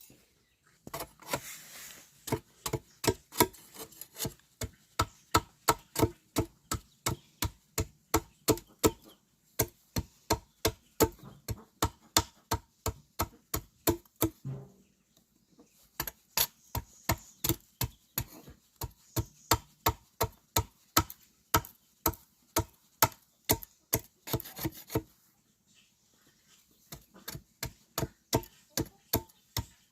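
Rapid, even chopping strokes, about three a second, in runs of several seconds with brief pauses between them.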